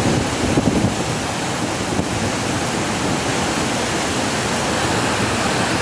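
Waterfall's rushing water, a steady, loud, unbroken noise from close by where the current is very strong.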